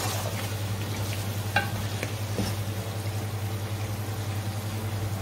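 Wooden spatula stirring potatoes and peas in masala in an aluminium pot, with a few short knocks against the pot about one and a half and two and a half seconds in, over a steady sizzle of the frying masala.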